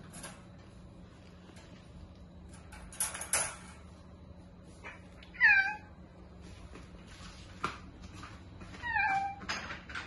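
Domestic cat meowing twice, the first call louder, each dropping in pitch at the end. A few short rustles come about three seconds in.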